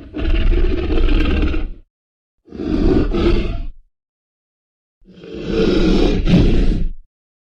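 Tyrannosaurus rex roar sound effects: three separate deep roars with dead silence between them, the first about a second and a half long, the second shorter, the last the longest at about two seconds.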